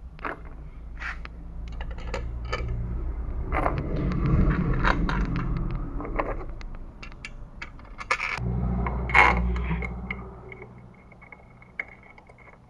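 Metal parts clinking and scraping, with two spells of low rumbling, about six seconds and then about two seconds long, that carry the loudest moments.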